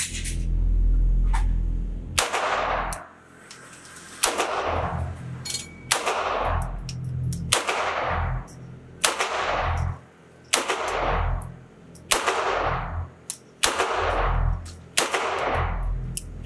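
Beretta U22 Neos .22 LR pistol fired nine times at a steady pace, about one shot every second and a half, each crack followed by a long echo off the concrete walls of an indoor range. It cycles the Federal bulk ammunition without a stoppage. A low rumble fills the first two seconds, before the first shot.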